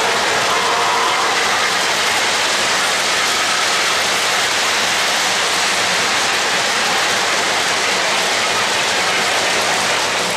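O-gauge model trains running on three-rail track: the steady whirr and clatter of wheels and gear-driven motors as passenger cars pass close by.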